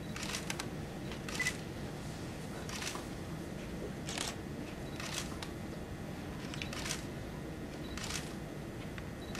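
Still-camera shutters clicking about once a second, some in quick pairs, with a short high beep about a second and a half in, over a steady low room hum.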